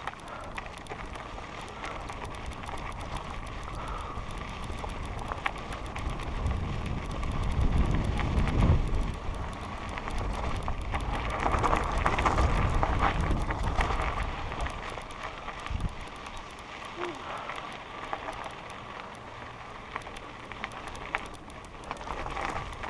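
Mountain bike riding over a dirt and gravel trail: tyres crunching and the bike rattling, under wind buffeting the helmet-mounted microphone. The wind rumble swells about eight seconds in and again around twelve to fourteen seconds.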